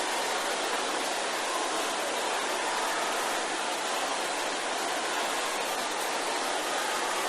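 A large congregation praying aloud all at once, the many voices merging into a steady, even rush of sound.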